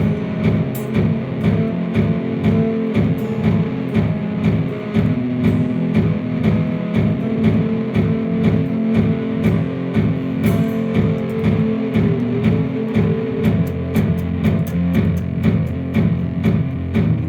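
Electric guitar through an overdrive, playing a low, heavy riff with sharp, evenly spaced attacks and a steady beat.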